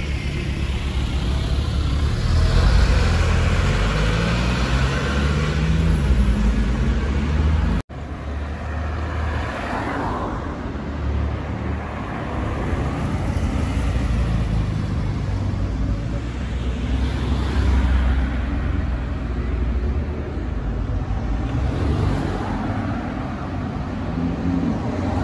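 Sports car engine accelerating in city traffic, its pitch rising over several seconds. An abrupt cut comes about eight seconds in, then steady traffic noise with engines passing.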